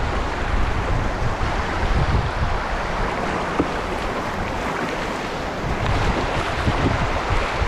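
Steady rushing of river whitewater churning around a canoe running a rapid, with wind buffeting the microphone in low rumbles.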